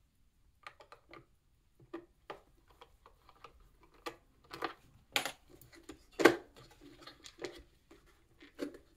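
Irregular clicks and knocks of the plastic housing of a DeLonghi EC220 espresso machine being handled and pried at with a screwdriver. A part is still stuck fast. One sharp knock a little after six seconds is the loudest.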